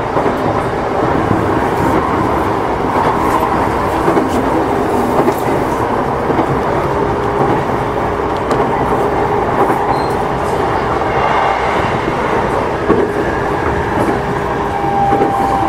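Running sound inside a JR Yokohama Line E233 series electric commuter train: steady rumble of wheels on rail with clicks over the rail joints and faint steady humming tones from the running gear.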